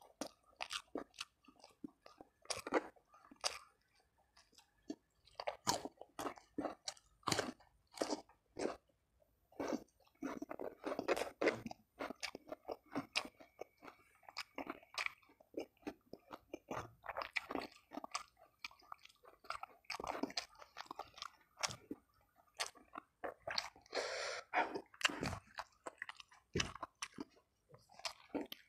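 Close-miked chewing of fried food and rice, a man's mouth working steadily with irregular crunches and wet clicks.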